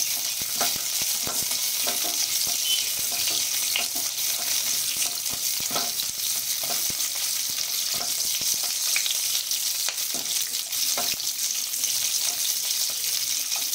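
Onion pieces frying in hot oil in a nonstick wok, a steady sizzle, being lightly browned. A spatula scrapes and taps against the pan every half second to a second as it stirs them.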